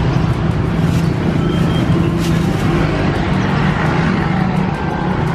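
Steady road-traffic noise with a low engine drone.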